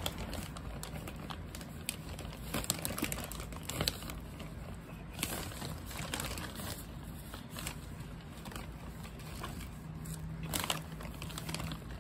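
Plastic potting-mix bag crinkling as soil is poured from it into a plastic plant pot, with irregular rustles and soft patters of falling soil.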